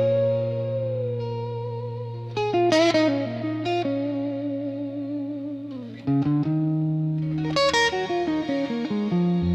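Instrumental blues intro: an electric guitar with effects playing plucked notes with slow bends over a sustained low bass note.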